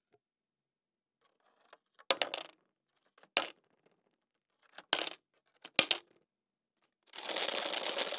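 Coins dropped one by one through a slot into an empty plastic water bottle, landing with four sharp clinks spaced a second or so apart. Near the end comes about a second of plastic crackling as the bottle is squeezed.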